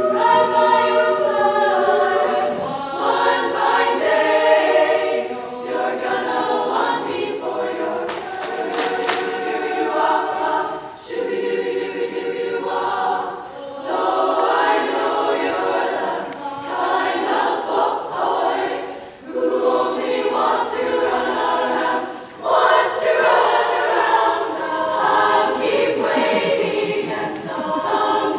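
High school girls' choir singing in harmony, in phrases broken by short pauses for breath.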